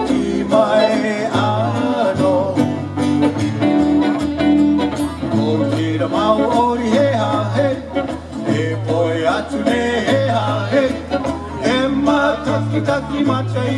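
Live Polynesian band music with singing, plucked electric guitars and ukulele over a bass line that moves from note to note.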